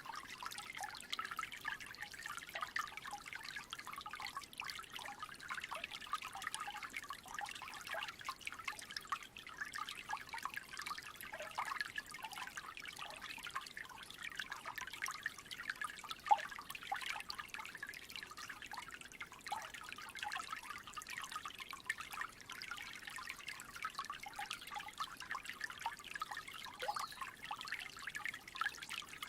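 Small creek trickling: a continuous patter of little splashes and gurgles, with one sharper, louder plip about sixteen seconds in.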